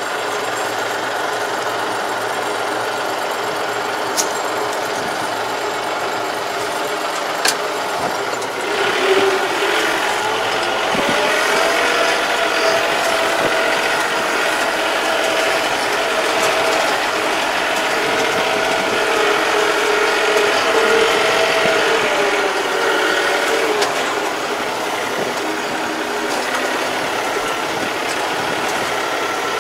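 Yanmar tractor's diesel engine and drivetrain running as it drives, heard from the driver's seat, with a mechanical rattle. Two sharp clicks come in the first few seconds. From about nine seconds in until about twenty-four seconds the engine runs louder, with a higher tone that shifts in pitch.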